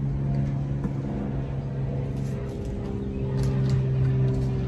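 Steady low machine hum at an even level, with a few faint light clicks in the second half.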